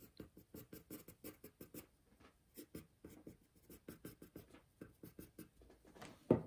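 Graphite pencil sketching on paper in quick, short strokes, about five scratches a second. A single louder thump near the end.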